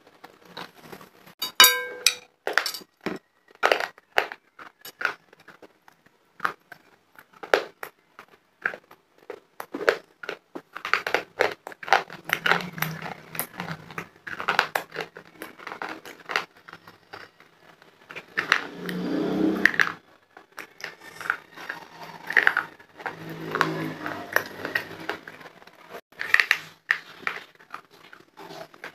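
Close-miked crunching and chewing of hand-made khadiya chalk: a long string of sharp, dry crunches, with denser stretches of grinding chews a few times.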